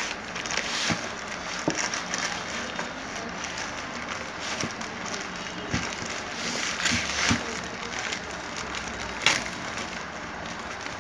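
Plastic bubble mailer being handled and torn open: irregular crinkling and rustling of plastic with scattered crackles, and one sharp crack about nine seconds in.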